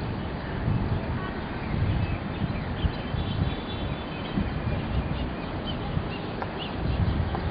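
Wind rumbling on the microphone of an open-air recording, with faint bird chirps a few times.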